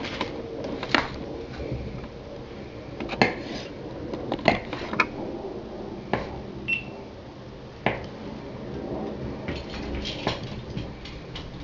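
Kitchen knife slicing a ball of fresh scamorza cheese on a wooden cutting board: several sharp knocks, irregularly spaced, as the blade meets the board.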